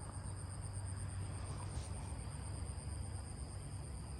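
Insects trilling steadily in a high, evenly pulsing note, over a low steady background hum.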